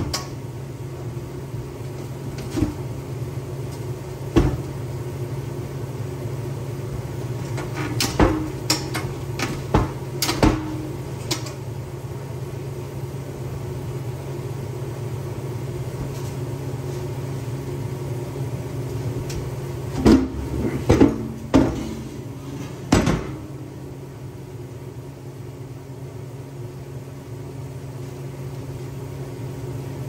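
Scattered sharp knocks and clanks of metal being handled or struck while the backhoe bucket is fabricated, over a steady low hum. The knocks come in clusters, one at about eight to eleven seconds in and one at about twenty to twenty-three.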